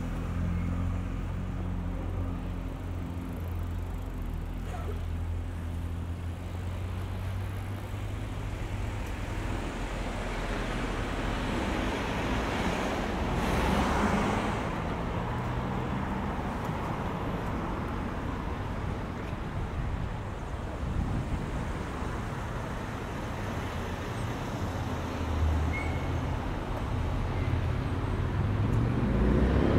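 Road traffic: a vehicle engine hums steadily at low revs at first, a car passes about halfway through, and another vehicle draws close near the end.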